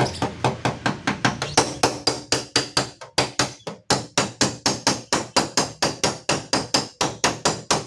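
Body-repair hammer rapidly striking the sheet-metal door panel of a Honda Brio, about four even blows a second, each with a short metallic ring: panel beating to work out a deep dent.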